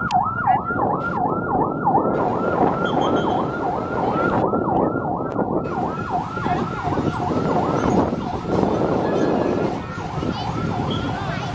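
An escort siren in fast yelp mode, sweeping up and down about three to four times a second and growing weaker near the end, over the low rumble of heavy vehicles moving past.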